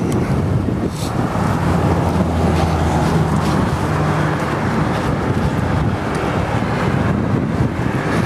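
Road traffic going by, with wind buffeting the microphone; a low engine hum swells through the middle.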